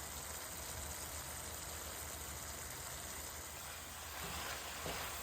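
Carne picada beef with peppers and onions simmering in a pan, a steady bubbling hiss as the meat juices cook down.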